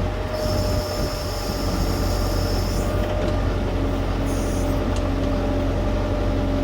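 Diesel engine of an LS U5030 tractor running steadily while working its backhoe. A high-pitched whine rides over the engine for about two and a half seconds near the start and again briefly around four seconds in.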